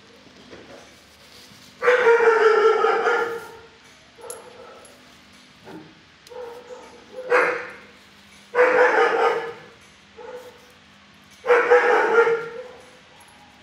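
Dog barking in a shelter kennel, in four loud bouts of about a second each with quieter barks between.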